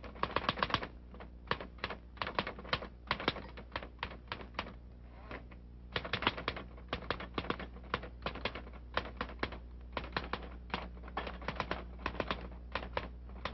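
Typewriter keys clacking in irregular runs of quick strokes with short pauses between, over a steady low hum.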